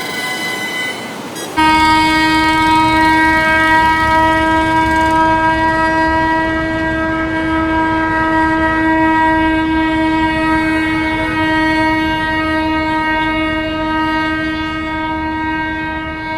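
A vehicle horn held down in one long, steady, unbroken blast of about fifteen seconds, the angry leaning-on-the-horn honking of a traffic jam, over a low rumble of idling traffic. A quieter, higher-pitched horn sounds before it starts, about a second and a half in.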